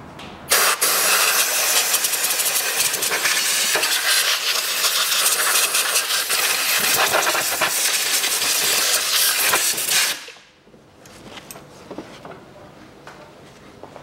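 Compressed-air blow gun hissing as it blasts dust out of the empty air filter housing. It comes on about half a second in, holds with small flutters in strength, and cuts off about ten seconds in.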